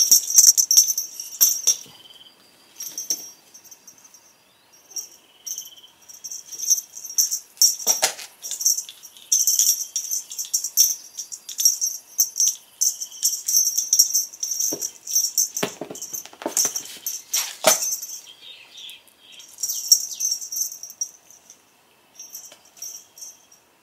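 Electronic bird cat toy chirping in high, twittering runs that come and go, with a few sharp thumps about a third of the way in and several more about two-thirds through.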